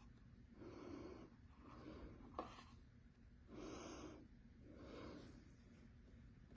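Faint breathing close to the microphone: a few slow, soft breaths in and out, with one small click about two and a half seconds in.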